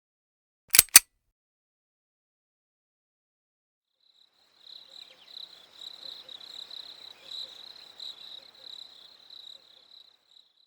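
Two sharp clicks in quick succession about a second in, then from about four seconds in a crickets sound effect: a steady high-pitched chirping trill that fades out near the end.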